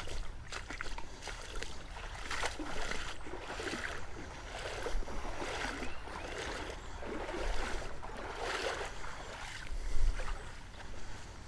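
Water sloshing around legs as someone wades through a shallow creek, swelling with each stride about once a second, with scattered splashes and clicks.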